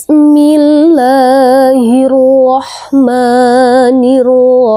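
A single voice chanting Quranic recitation in the nahawand melody (irama nahawand): long held notes with a wavering ornament, one note stepping slightly lower about a second in, a breath about two and a half seconds in, then another long held note.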